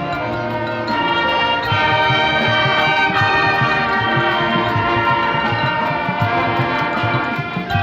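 Marching band playing: brass holding sustained chords over a steady drum pulse.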